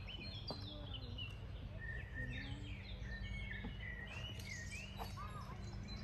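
Several wild birds singing, a dense run of short chirps and whistles, over a steady low background hum.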